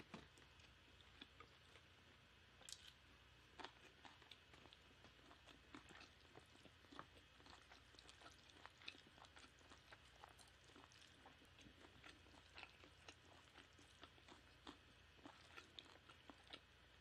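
Faint close-miked chewing: soft, irregular clicks and smacks of a mouthful of food being eaten.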